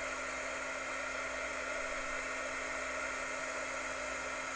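Small handheld heat gun running steadily: an even rush of fan-blown air with a faint steady hum, blowing hot air to shrink heat-shrink tubing over a soldered wire joint.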